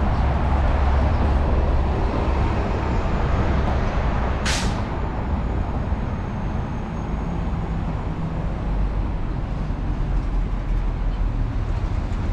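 City street traffic with a steady low rumble of passing engines. About four and a half seconds in comes one short, sharp hiss of released air, typical of a bus or truck air brake.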